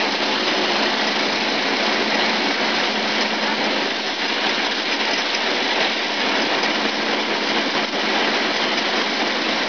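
Peanut sheller running with peanuts being fed through its shelling chamber: a loud, steady, even rushing noise of the machine and the pods and kernels passing through it.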